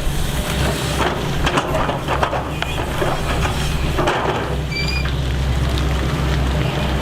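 Excavator's diesel engine running steadily, with scattered crackles and knocks over it and a brief high squeak about five seconds in.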